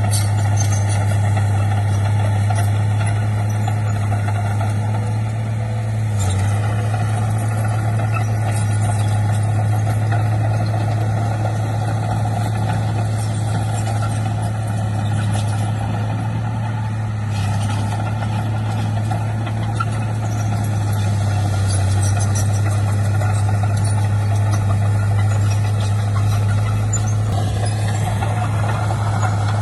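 Heavy diesel engine of an earthmoving machine running steadily with a deep, even hum, shifting slightly about six seconds in and again near the end.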